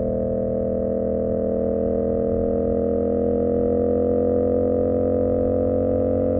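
CFMoto 450SS motorcycle's parallel-twin engine pulling steadily in gear, its pitch rising slightly as the bike gently gathers speed.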